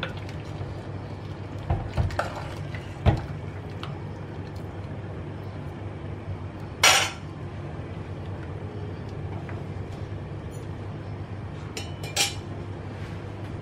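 A ladle knocks a few times against a clay pot while kara kuzhambu is stirred, about two and three seconds in, over a steady low hum. A short burst of noise comes near the middle and another near the end.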